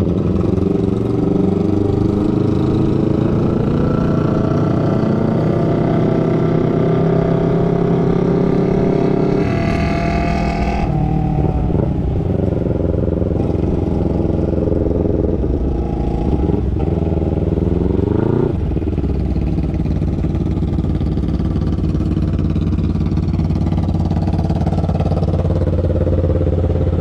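250 cc parallel-twin motorcycle engine under way, its pitch climbing as it revs and dropping at gear changes, with a high rev about ten seconds in. It settles to steadier running in the second half.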